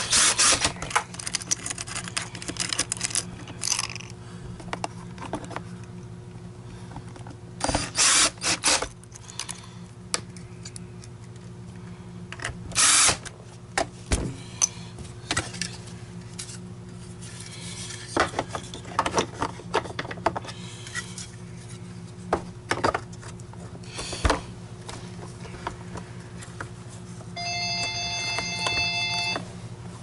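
Plastic housing parts of a carpet extractor clattering and knocking as they are handled and fitted during reassembly. Near the end, a telephone rings for about two seconds.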